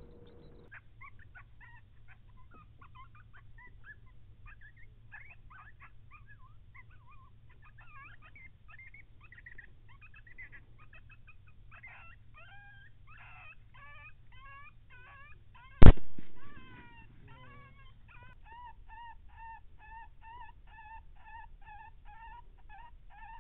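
Coyotes yipping and howling in a quick, jumbled chorus, broken about 16 seconds in by a single shot from a suppressed AR-15 rifle, the loudest sound. Near the end come evenly spaced yelps, about two or three a second.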